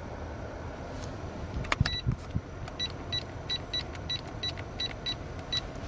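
A quick, uneven run of short, identical high electronic beeps, about nine of them, from the buttons of an aftermarket car DVD/GPS head unit being pressed. They come over the steady low hum of the car's cabin, with a few sharp clicks just before the beeps begin.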